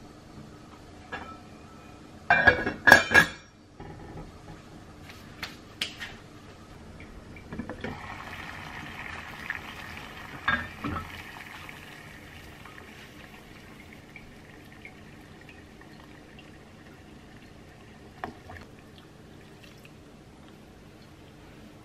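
Kitchen sounds at a gas hob with a yellow enamel saucepan: a short burst of clattering metal-on-metal knocks about two to three seconds in, then scattered light clicks and taps. In the middle, water boiling in the saucepan gives a steady hiss for a few seconds.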